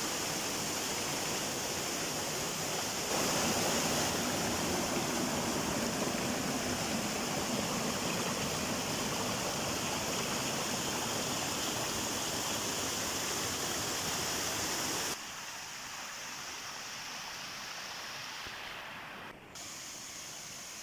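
Waterfall rushing down rocks, a steady wash of falling water. It gets louder about three seconds in and drops suddenly to a quieter level about fifteen seconds in.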